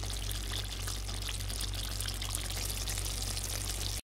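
Thick chicken vindaloo sauce simmering in a pan, a dense crackling, popping fizz of bubbles over a steady low hum. It cuts off abruptly about four seconds in.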